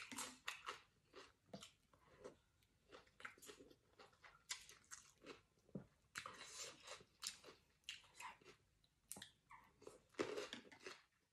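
A person chewing and crunching food, a salad of prawns, noodles and raw cucumber, in an irregular run of short crunches that is busiest about six seconds in and again near the end.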